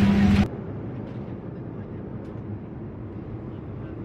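Steady cabin noise inside a Boeing 737 airliner: an even rush of engine and airflow. It follows a louder stretch with a steady hum that cuts off abruptly about half a second in.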